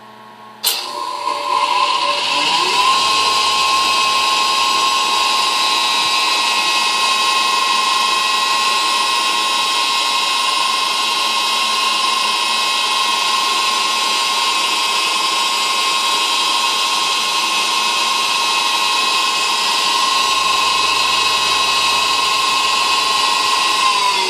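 Stoke Tornado mill's electric motor switching on less than a second in and spinning up to a steady high whine with a dense rushing noise. It starts to wind down right at the end.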